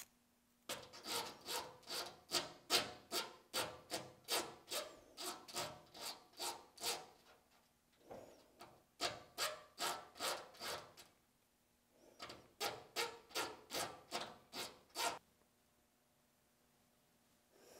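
Small hand file rasping back and forth between the teeth of a freshly parted-off gear to remove the burr, at about two strokes a second. The filing comes in three runs with short pauses between, and stops about two and a half seconds before the end.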